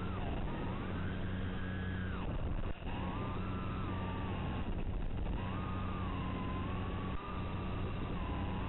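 Small FPV quadcopter's motors whining, the pitch gliding up and down with the throttle, over a steady low hum. The sound dips out briefly twice.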